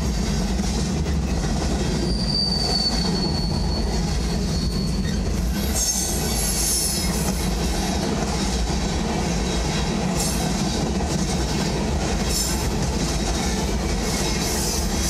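Freight train cars (tank cars and covered hoppers) rolling past close by, heard from inside a car: a steady rumble of wheels on rail. A thin, high wheel squeal comes in about two seconds in and holds for a few seconds, and shorter hissing squeals follow near the middle and toward the end.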